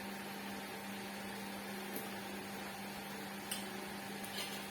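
Meat sizzling faintly on a tabletop grill over a steady electrical hum, with a few light clicks of utensils.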